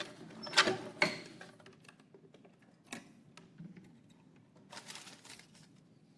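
Sharp clicks and knocks of handling at a wooden lottery box, loudest about a second in, then scattered light ticks and a short rustle of paper about five seconds in as a paper slip is drawn out.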